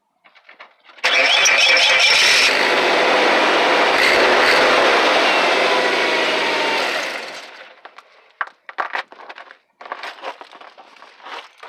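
Truck engine starting abruptly about a second in and running for about six seconds through its freshly patched exhaust, a tailpipe leak sealed with heat tape and a clamp, before fading out. The exhaust still sounds fairly loud, though much better than with the leak.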